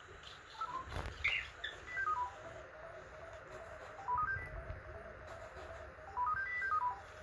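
Sony Aibo robot dogs' electronic beep 'talk': short runs of stepped beeps climbing and falling in pitch in three phrases about two and a half seconds apart, with a lower, level string of beeps between them. There are a few faint clicks.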